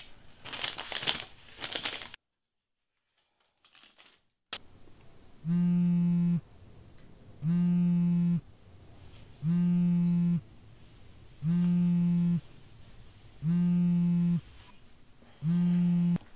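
Paper rustling at first, then a couple of seconds of dead silence. Then a mobile phone signals an incoming call with a low buzzing tone, six pulses about a second long, two seconds apart.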